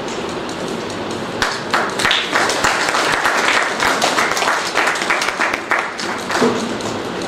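Audience applauding, a crowd's clapping that starts about one and a half seconds in and dies away about six seconds in, over a steady background hiss.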